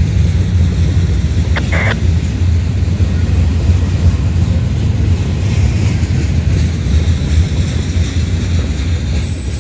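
A freight train of steel-loaded flatcars rolling past, with the steady, loud low rumble of its wheels on the rails.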